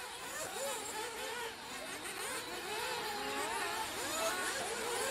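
Several nitro-powered RC off-road cars' small glow engines racing at once, buzzing over one another with pitches that keep rising and falling as they rev and back off.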